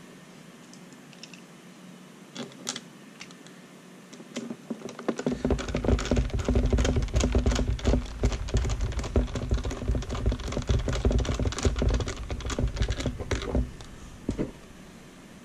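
Small screwdriver driving a screw into the plastic case of a Turnigy i6 RC transmitter, with the case handled on the bench: a dense run of rapid clicks and knocks lasting about nine seconds, after a few lone clicks.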